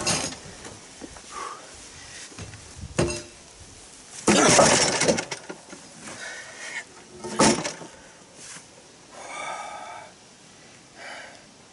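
Heavy concrete slabs knocking and grinding against each other as they are laid on a loaded cart: a few hard knocks, and a loud gritty scrape of about a second around four seconds in as one slab slides onto another. Fainter effort sounds from the man lifting come in between.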